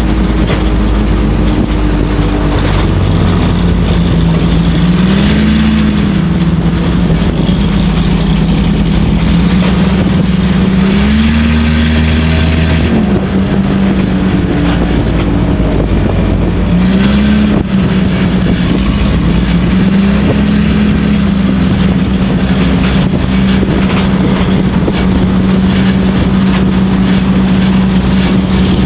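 Dirt-track Stinger race car's engine heard from inside the car, running hard under a dense rush of noise, its pitch swelling and dropping back about five times as the throttle comes on and off around the oval.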